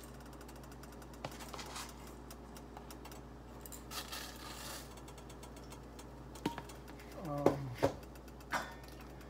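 Dry rolled oats scooped from a canister with a metal measuring cup and poured into a pot of boiling water: light scratchy scraping, then a short rustling hiss of oats pouring about four seconds in. Near the end come a couple of sharp knocks, the loudest sounds, over a steady low hum.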